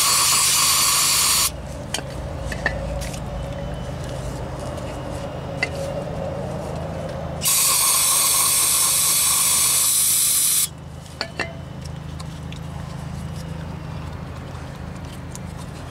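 Aerosol brake cleaner hissing as it is sprayed into a brake caliper to flush grime from around the piston boot. There are two long bursts, one ending about a second and a half in and one of about three seconds in the middle, with small clicks and knocks of the caliper being handled between and after them.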